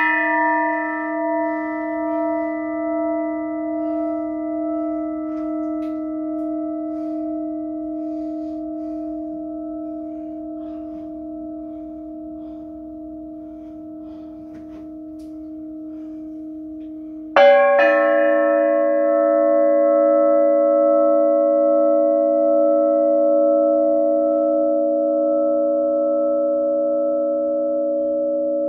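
A struck metal percussion instrument ringing with a bell-like tone of several clear, steady pitches that fades slowly with a slight pulsing. It is struck again about seventeen seconds in and rings on.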